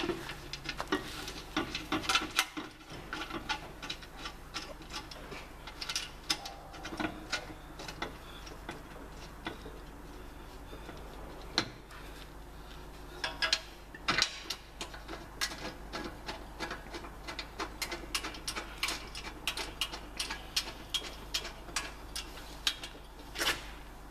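Hand tools clicking and knocking on metal parts as the air reserve tank is fastened onto a tyre changer with Allen bolts: irregular sharp clicks, coming in quick runs in the second half.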